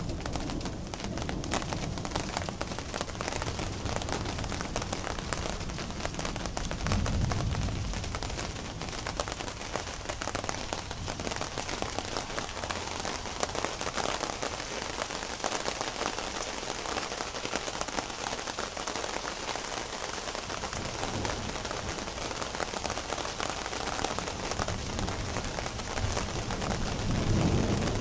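Heavy rain falling steadily and pattering on nearby surfaces, a dense hiss with fine crackle. Low rumbles of thunder swell up about a quarter of the way in and again near the end.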